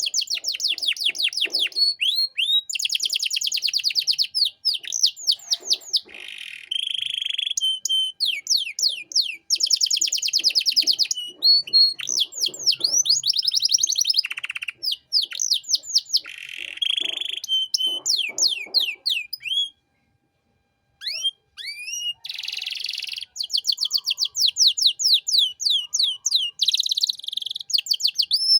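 Domestic canary singing a long, fast song of rapid trills and sweeping whistled phrases, broken by a brief silence about 20 seconds in.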